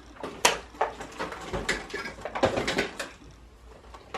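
Toy packaging handled as a boxed toy egg is lifted out: irregular sharp clicks and short rustles of cardboard and plastic, the loudest click about half a second in and another cluster around two and a half to three seconds in.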